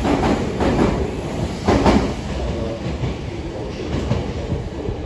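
Meitetsu 3500 series and 3300 series electric train pulling away: wheels clacking over rail joints as the last cars pass, the loudest clack about two seconds in, then the running sound fading as the train moves off.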